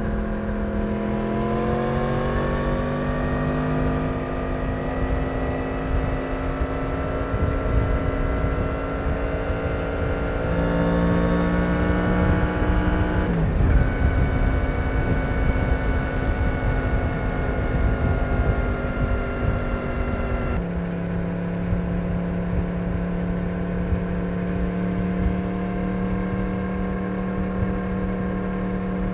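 Yamaha MT-10's crossplane-crank inline-four with its stock exhaust, running under way on the road. Its note climbs slowly for the first ten seconds or so, then changes abruptly twice, near the middle and about two-thirds of the way through.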